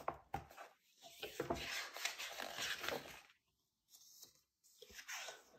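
Page of a large hardback picture book being turned: a paper rustle lasting a couple of seconds, with a few light clicks of handling before it and a shorter rustle near the end.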